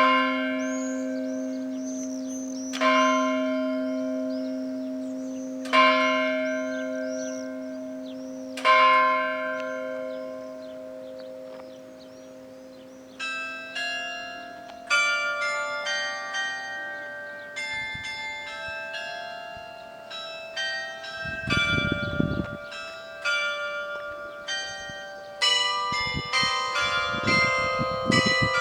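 Church bells of Visby's St. Mary's Cathedral ringing. A large bell is struck four times about three seconds apart, its hum lingering between strokes. Then, from about halfway, several smaller bells join in quick overlapping strikes in a busy peal.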